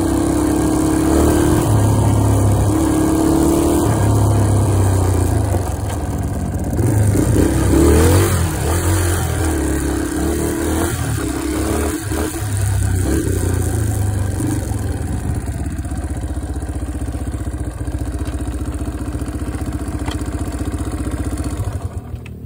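Engine of a ridden off-road vehicle running under way, its pitch rising and falling with the throttle, with a sharp rev about eight seconds in. In the last several seconds it runs more steadily and a little quieter, dropping off right at the end.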